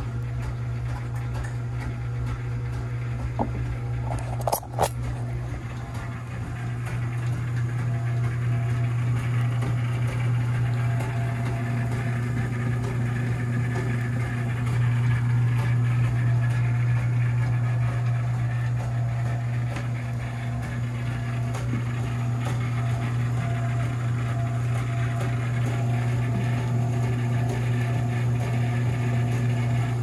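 Homemade quail plucker running empty: an old garage door opener motor spinning a plate of rubber plucker fingers in a plastic 5-gallon bucket, giving a steady low hum. A couple of sharp knocks come about four and a half seconds in.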